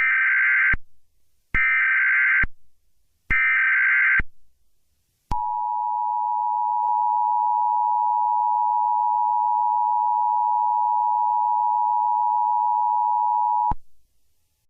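Emergency Alert System header: three short bursts of warbling digital data tones, then the EAS attention signal, a steady two-tone alarm held for about eight seconds that cuts off suddenly. Together they mark the start of a new emergency alert broadcast.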